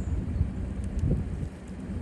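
Low, steady rumbling wind noise on the microphone, with one faint short high chirp right at the start.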